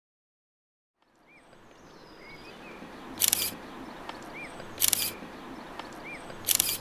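Camera shutter releasing three times at an even pace, about every second and a half, each a short, sharp mechanical snap, over a faint outdoor background that fades in about a second in.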